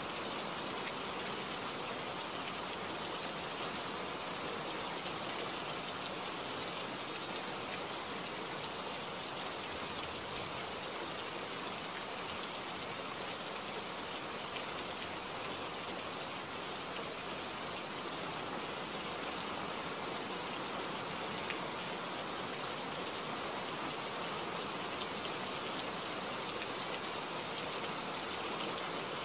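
Steady rain falling in a forest, an even hiss of many drops with no thunder.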